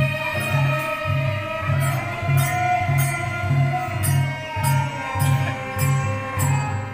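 Devotional music: long held melodic lines over a steady low drum beat of about two strokes a second, with bright jingling cymbal strokes joining in about halfway through.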